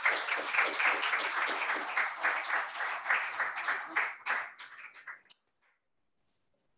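A group of people clapping, the claps thinning out to a few single ones and stopping about five seconds in.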